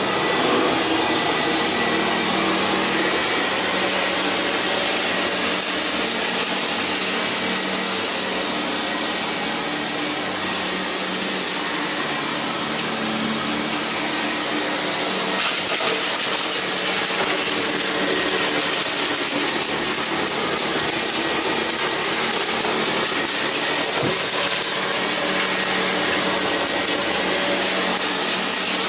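Vacuum cleaners running steadily: a loud rushing air noise with a steady high-pitched motor whine and a low hum. The hiss brightens about four seconds in and again around fifteen seconds.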